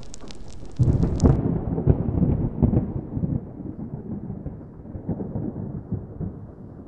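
Fire crackling that stops about a second in, as a loud thunderclap breaks in and rolls on as a long low rumble that slowly fades with a few swells.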